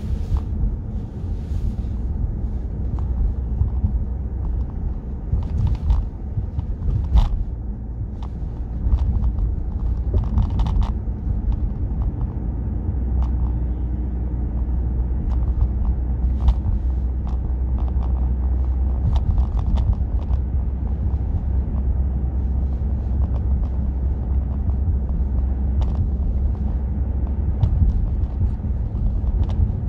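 A car driving on a city street, heard from the moving car: steady low rumble of road and engine noise, with scattered light clicks and knocks.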